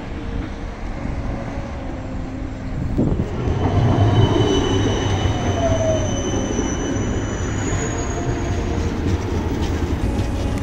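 Articulated tram running alongside a tram stop, its rumble swelling about three seconds in as it passes close by. Thin, high wheel squeals come in from about four seconds on, and a short whine falls in pitch near the middle.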